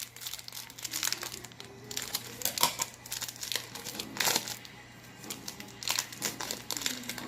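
Wrapper of a football trading-card pack crinkling and tearing as it is opened by hand, in a run of irregular crackles.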